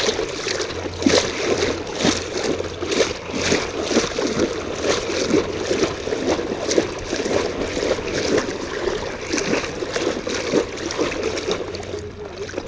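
Shallow water sloshing and splashing, with many small irregular splashes.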